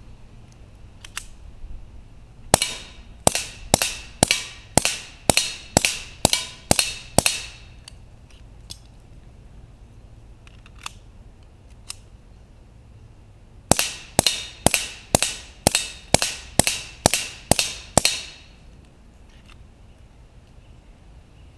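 GSG 1911 .22 pistol fired through a SilencerCo Sparrow suppressor: two strings of about ten quick shots each, about two a second, each shot a sharp crack with a short ringing tail, separated by a pause of several seconds.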